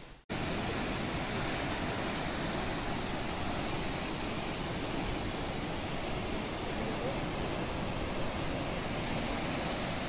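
Steady rushing noise of tall waterfalls plunging into a gorge, after a brief dropout right at the start.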